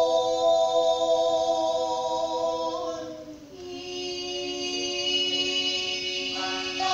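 Voices singing long held notes in a slow drone-like chant, moving to a new held note about halfway through. Short percussion strikes begin just before the end.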